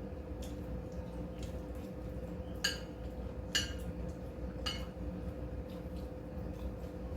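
Eating utensils clinking against dishes at the table: three sharp, ringing clinks in the middle, with fainter taps around them.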